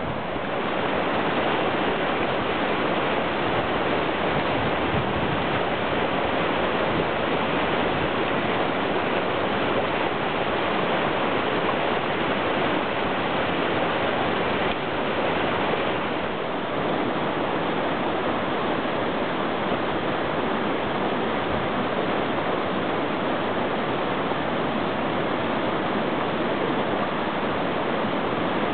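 Rain-swollen, muddy stream storm runoff rushing and churning over rocks and a crossing: a steady rush of water, with a slight break about halfway through.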